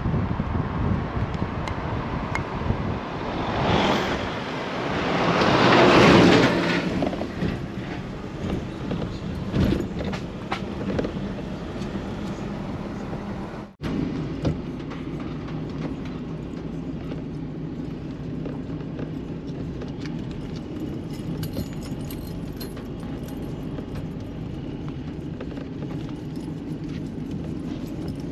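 A car driving, heard from inside the cabin: engine and road noise, with two loud swells of rushing noise about four and six seconds in. After a break about halfway there is a steadier, quieter engine hum on a rough dirt lane, with faint ticks and rattles.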